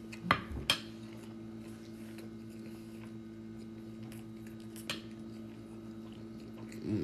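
A metal spoon clinking against a ceramic plate twice in quick succession, then one fainter tap about five seconds in, over a low steady hum.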